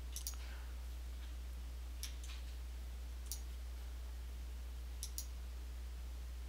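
A few soft computer-mouse clicks, several in quick pairs, over a steady low hum.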